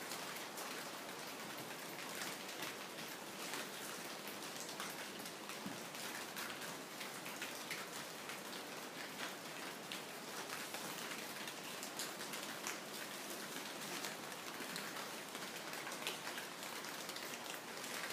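Steady patter of rain, with many small drips of water falling through a leaking, caved-in ceiling.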